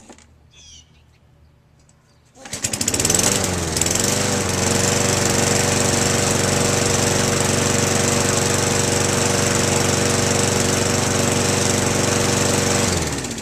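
Lawnmower's small petrol engine starting about two seconds in, its pitch wavering briefly as it catches, then running at a steady speed until it stops near the end. It runs normally after a carburetor cleaning that reseated a slipped float-bowl seal.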